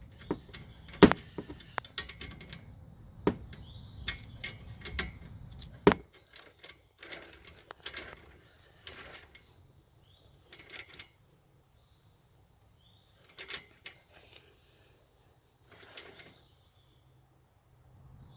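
Hands at work on a car's A/C plumbing: sharp clicks and knocks of tools and parts being handled, busiest in the first six seconds, then only scattered brief rustles and scrapes.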